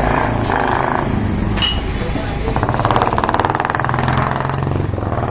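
Royal Enfield Classic 350 Reborn's single-cylinder engine running through an aftermarket Indori exhaust as the motorcycle rides past. The rapid exhaust beat grows loudest through the middle, then eases off.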